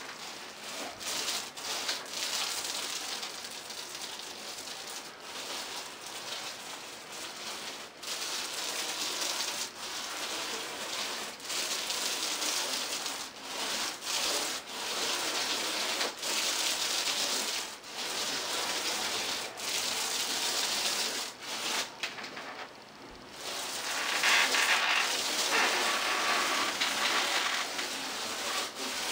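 Paint roller with a 1/2-inch nap rolling flat ceiling-white paint across a drywall ceiling, a wet rubbing hiss in back-and-forth strokes with short breaks between them and a brief pause about three-quarters through: the fresh paint being rolled back out.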